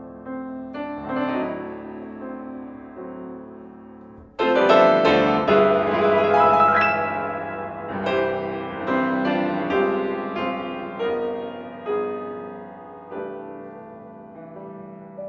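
Grand piano being played: soft, ringing notes, then a loud chord about four seconds in that opens a fuller, busier passage, which gradually quietens toward the end.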